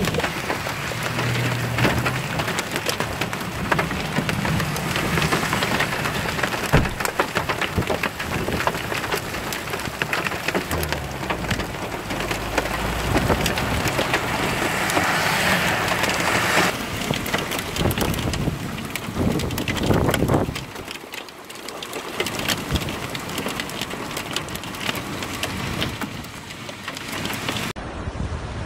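Hail and heavy rain pelting down, a dense crackle of countless small hits over a steady hiss, with vehicles driving through the water on the wet road. Shortly before the end it changes to the steadier rush of flowing floodwater.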